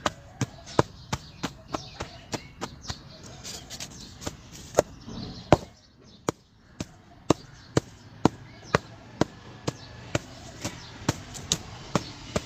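A lump of hardened cement being struck over and over to break it: sharp knocks about two or three a second, with a short pause about halfway through.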